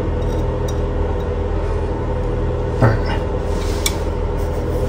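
A steady low mechanical hum, with a single sharp knock about three seconds in and a faint click a second later. The knock and click come from a wrench tightening the plastic coupling nut of a braided toilet supply line under the tank.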